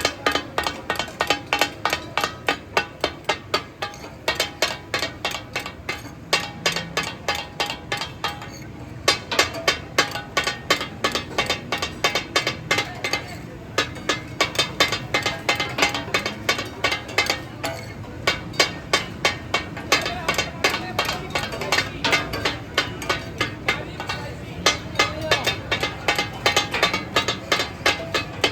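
Katakat being made: two metal spatula blades beating rhythmically on a large iron tawa griddle, chopping the goat offal, with a ringing metallic clatter at about four strikes a second and brief pauses now and then.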